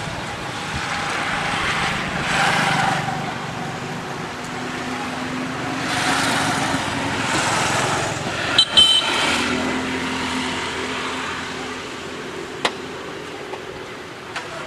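Road traffic: several vehicles pass one after another, their noise swelling and fading, with a steady engine hum at times. A brief sharp high-pitched sound about nine seconds in is the loudest moment.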